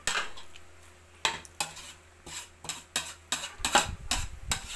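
A metal spoon stirring a chopped, moist mixture in a stainless steel pot, clinking and scraping against the pot's sides in irregular strokes. The clinks are few at first and come quickly in the second half.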